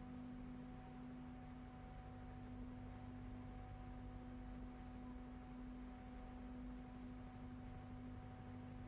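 Faint steady electrical hum: one low tone with weaker higher tones above it, unchanging throughout. It is the only sound on a silent film's soundtrack.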